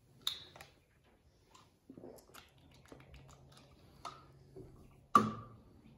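Plastic water bottle being handled, with scattered crinkles and small clicks from the bottle and its screw cap, and one sharp click about five seconds in.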